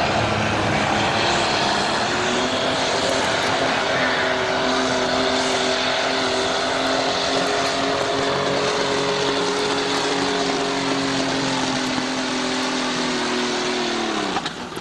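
Pulling tractor's engine running at full throttle as it drags a weight-transfer sled, holding a steady high pitch after about two seconds. Near the end the engine winds down as the pull ends.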